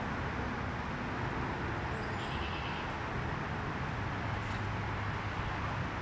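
Steady outdoor background noise: a low rumble like distant road traffic, with a faint high chirp about two seconds in.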